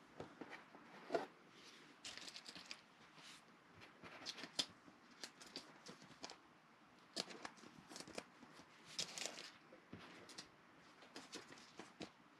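2020 Panini Mosaic football cards being handled: glossy cards slid off one another and flicked through by hand, with a clear plastic penny sleeve crinkling. The result is a faint run of irregular short scrapes and clicks, sharpest about a second in and again about four and a half seconds in.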